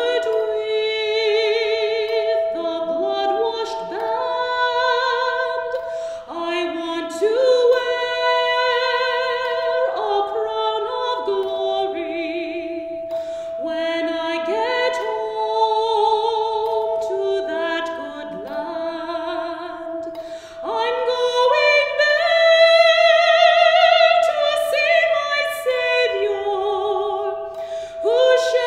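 A woman singing a church song solo, with a wide vibrato, in phrases of a second or two, over a steady held note.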